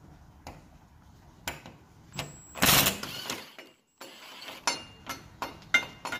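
An old sliding patio door handle being worked off the door frame: light metal clicks and knocks, with one louder scraping rattle about two and a half seconds in. More scattered clicks follow in the second half.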